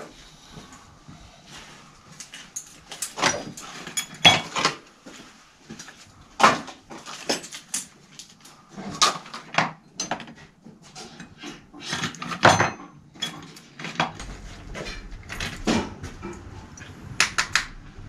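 Irregular metallic clicks, clinks and knocks of small hub parts and hand tools being handled on a workbench while working on a kids' bike freewheel hub, with a few louder knocks, the strongest about four and twelve seconds in.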